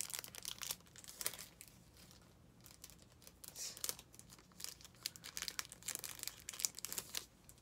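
Clear plastic packaging sleeve of a makeup brush crinkling in the hands as the brush is worked out of it: a run of irregular crackles and rustles.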